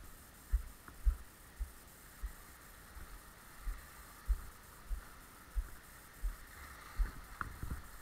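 Footsteps of someone walking up a dirt path, heard as dull thuds through a body-worn camera, about one and a half steps a second, over a faint steady high hum.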